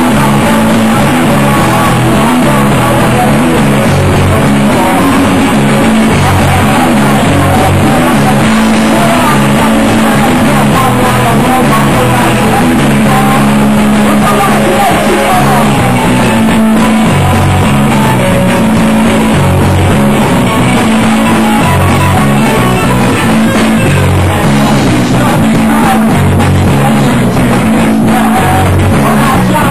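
Live rock band playing loud: electric guitars, bass and drums, with the singer's vocals over them, recorded from within the crowd so the sound is dense and pushed close to full level.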